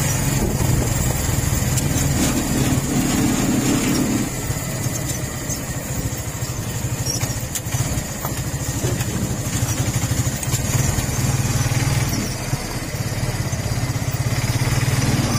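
Motorcycle engine running steadily while riding along a highway, over a broad rushing road and wind noise. The engine eases a little about four seconds in and picks up again near the end.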